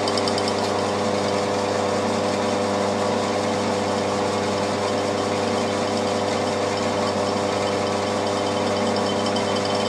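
Milling machine spindle and drive motor running steadily with no cutting load while it spins an edge finder, giving a constant hum with a faint high whine above it.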